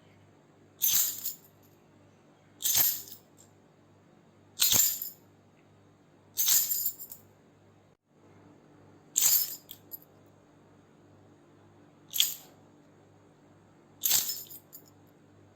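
A bunch of metal keys shaken in short jingling bursts, seven in all, about one every two seconds, with a longer pause in the middle.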